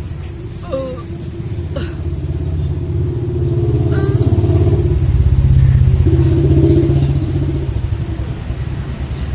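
A motor vehicle engine running with a steady low rumble that swells louder for a few seconds midway, then eases off.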